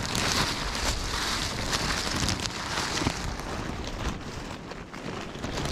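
Steady rushing wind noise on the microphone, a little quieter in the second half.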